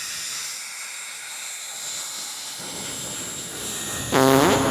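Dyson Airwrap i.d. blowing on its cold setting: a steady rushing hiss of air with a thin high motor whine. Air buffeting adds a low rumble a little past halfway, and near the end a louder pitched sound comes in over it.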